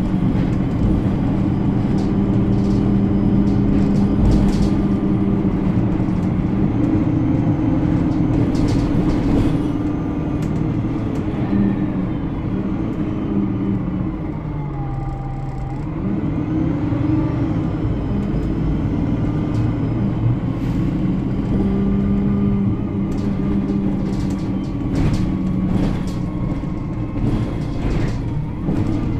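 Alexander Dennis Enviro 300 single-deck bus running, heard from on board: a steady engine and driveline note that drops away as the bus slows about halfway through, then builds again as it pulls off. Scattered rattles run through it, along with faint high squeals.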